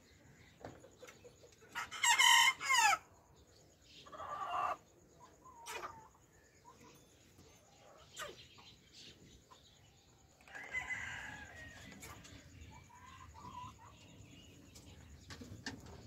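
A rooster crows loudly about two seconds in, a call of about a second, with softer clucks and calls from hens following later.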